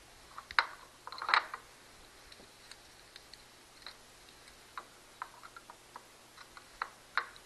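Scattered small clicks and taps of tools and a small circuit board being handled at a bench, louder about a second in and twice near the end.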